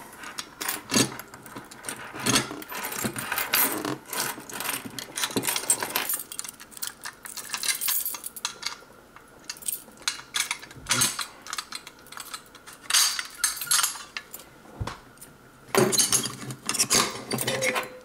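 Irregular clicks, clinks and knocks of keys on a key ring and the housing of an FCI MS2 fire alarm pull station being handled as it is unlocked with its key and worked open, with a denser burst of clattering near the end.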